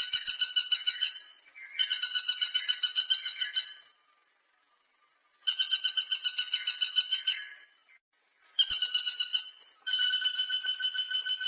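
Woodpecker calling: rapid rattling series of sharp notes, about eight a second, in repeated bursts of a couple of seconds each with short pauses between.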